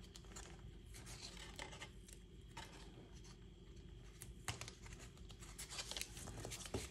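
Faint paper and cardstock handling at a tabletop: light scratching, rustling and small scattered taps as pieces are slid, pressed and lined up.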